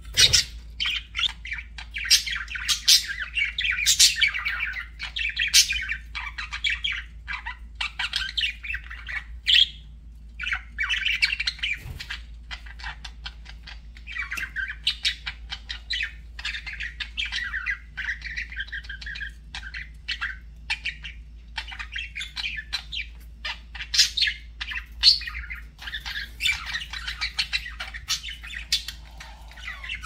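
Budgerigars chattering and warbling, with sharp squawks and chirps and a brief lull about ten seconds in.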